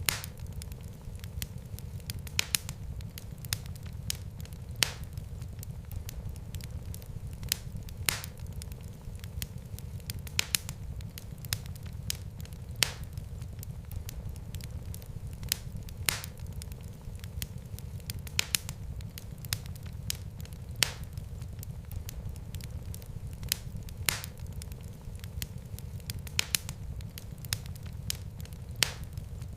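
Fireplace fire crackling: sharp pops every couple of seconds over a steady low rumble of the flames.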